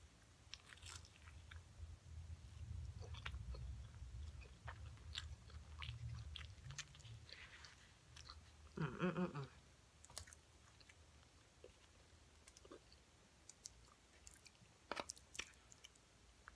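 Close-miked chewing of a bite of battered fried whiting, with crunches and wet mouth clicks. About nine seconds in there is a short hummed "mm", and a few sharp clicks come near the end.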